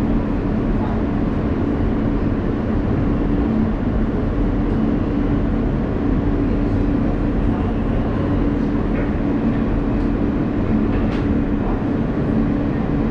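Inside an R160A subway car running on the track: a steady rolling rumble with a constant low hum, and a faint click near the end.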